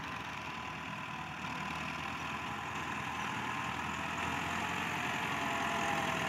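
Massey Ferguson 385 tractor's four-cylinder diesel engine running steadily under load while its front blade pushes sand, growing gradually louder as it comes closer.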